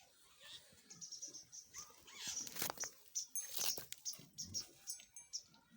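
Animal sounds in a goat pen: a quick run of short, high chirping calls with a few sharp clicks and knocks among them.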